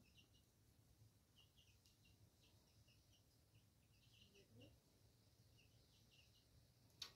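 Faint outdoor ambience of small birds chirping, short high notes repeating throughout over a low steady hum, with one sharp click near the end.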